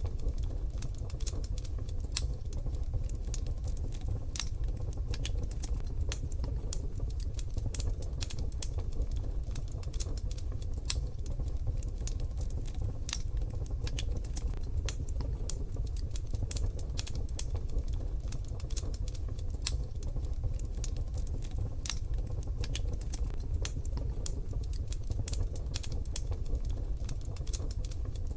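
Wood fire crackling in a wood-burning stove: a dense, irregular run of small sharp pops and snaps over a steady low rumble.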